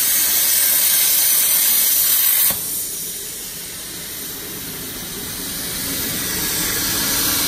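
CNC plasma cutting torch, fed by a 100-amp plasma power source, cutting through 20 mm steel plate: a loud, steady hiss that cuts off suddenly about two and a half seconds in as the arc goes out at the end of the cut. A much quieter hiss carries on after it.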